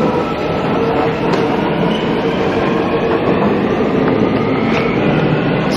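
Subway train running, a steady loud rumble with a held hum that lasts a few seconds.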